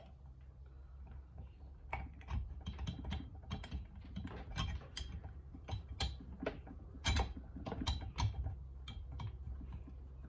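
Irregular light clicks and taps of metal engine parts being handled as a piston wrist pin is lined up with the piston and connecting rod, with one sharper click about seven seconds in.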